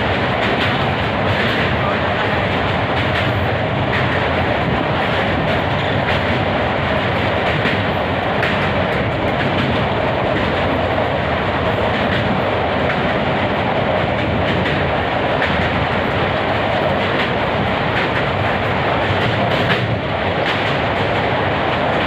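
Passenger train crossing a steel truss bridge, heard from the open coach door: a loud, steady rumble of wheels on the rails with scattered clacks.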